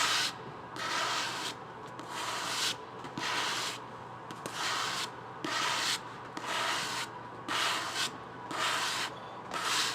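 A hand rubbing in slow, even strokes across the surface of a hardcover book, a dry scratchy swish about once a second.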